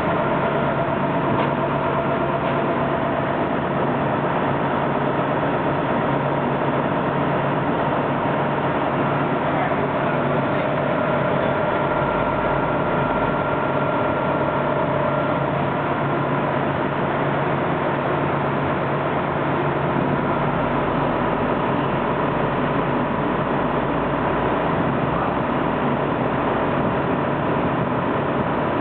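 Seagrave tiller ladder fire truck's diesel engine running steadily as the truck moves off, with a deeper rumble swelling about halfway through and again in the last third.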